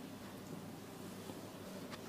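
Faint rubbing of oiled hands on skin during a massage, with one short click near the end.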